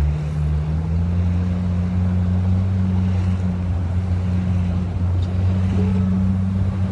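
A small boat's motor running steadily under way, its pitch rising slightly about a second in, with water rushing past the hull.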